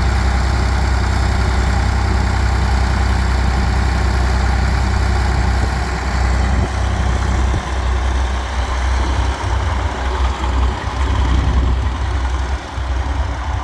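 International Harvester TD24 crawler bulldozer's diesel engine idling with a deep, steady rumble that turns uneven and wavering about halfway through.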